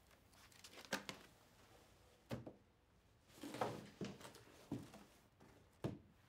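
Soft handling sounds: several light knocks and rustles as a hand moves among books and pencils on a wooden floor, with a longer rustle in the middle.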